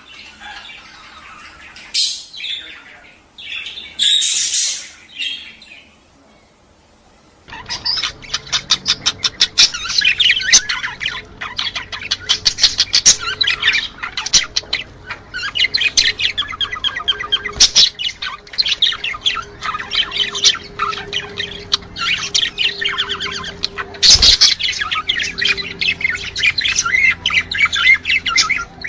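Budgerigars calling: a few separate chirps and squawks, a short pause, then from about seven seconds in a dense, rapid chattering warble full of quick clicks. It is the budgerigar mating call, played to bring pairs into breeding condition.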